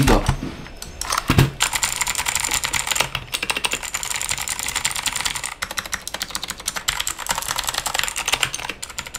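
Aula F3261 mechanical keyboard being typed on: a few scattered key clicks, then from about a second and a half in a fast, continuous run of keystrokes.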